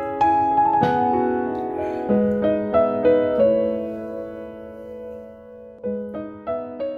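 Background piano music: a gentle melody of single notes and chords that ring and die away, thinning to a held pause about halfway through before a few more notes near the end.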